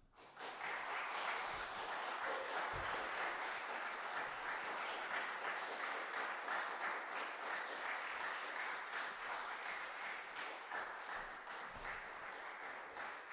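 Audience applauding: clapping breaks out at the start and fades a little near the end.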